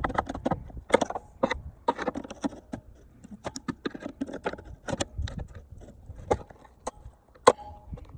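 Irregular plastic clicks and knocks from a tail light housing and bulb socket being handled and worked into place, with one sharper knock near the end.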